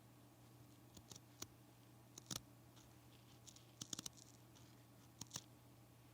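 Scissors snipping in a few quick, sharp cuts, several coming in close pairs, over a faint steady hum.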